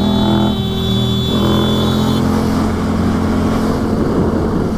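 Yamaha FZ-07's 689 cc parallel-twin engine running under way, with wind rushing over the helmet microphone.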